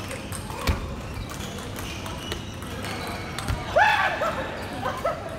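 Table tennis ball clicking sharply on the table and bats between points, with a quick cluster of short high squeaks near the four-second mark, the loudest sound, echoing in a large hall.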